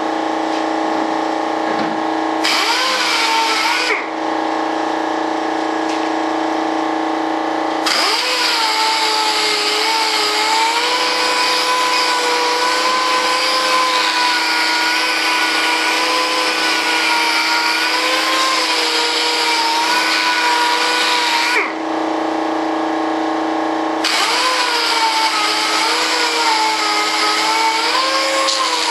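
Electric orbital sander running on a cured resin mold surface, the motor's pitch wavering under load beneath a gritty sanding hiss. Three times the hiss drops away and only the motor's steady tone remains.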